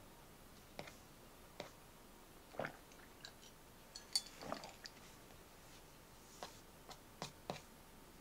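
Soft, scattered clicks and taps, a dozen or so at uneven intervals, the sharpest about four seconds in.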